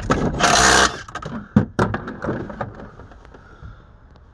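A Makita cordless driver runs in one short, loud burst on a bolt, then gives a couple of sharp knocks as its socket adapter snaps off. Quieter handling clatter follows.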